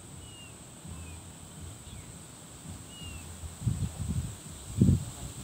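A bird chirping a few short, falling notes over a steady high-pitched whine, with two loud low rumbles near the end.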